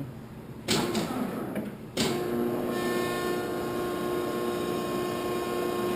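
Landis 2R universal grinder's motors starting up in two steps, the first under a second in and the second about two seconds in. The machine then runs with a steady electric hum.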